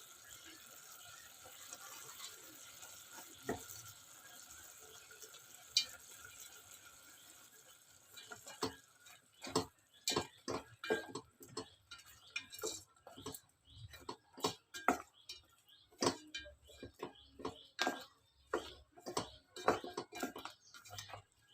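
A steady hiss for about eight seconds, then a run of sharp, irregular clicks and knocks of kitchen utensils on dishes, a few a second.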